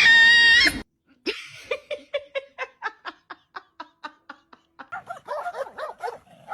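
A person laughing in a long run of short, even bursts, about four a second. It follows a brief held tone at the start that cuts off abruptly.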